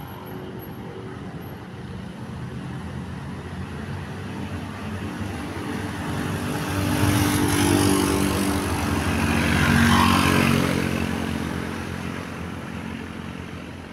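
A bus drives past, its engine and road noise growing louder to a peak about seven to ten seconds in and then fading away.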